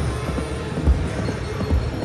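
Slot machine game music and reel-spin sound effects, with a couple of low thumps about a second in and near the end.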